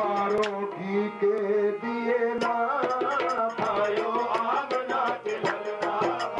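Qawwali-style devotional music: tabla strokes keep a quick, steady rhythm under long held melodic notes.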